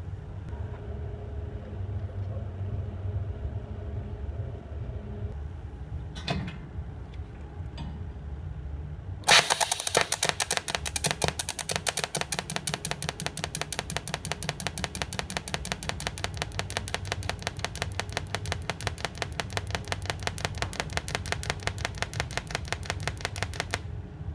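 TIG welding arc running in pulse mode: a fast, even train of sharp crackling pulses that starts suddenly about nine seconds in and stops shortly before the end. A low steady hum from the welder runs underneath.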